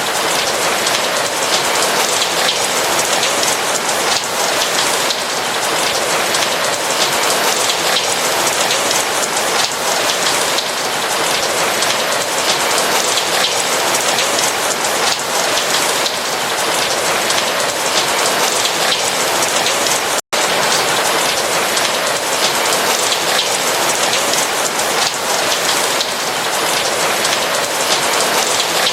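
Steady rain falling, a dense, even patter of drops with no let-up, broken only by a split-second dropout about twenty seconds in.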